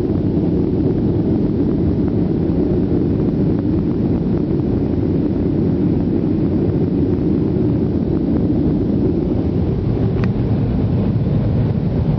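Steady, low cabin noise of a Boeing 737 in its climb after takeoff: engine drone and airflow heard from inside the passenger cabin, holding an even level throughout, with one faint click about ten seconds in.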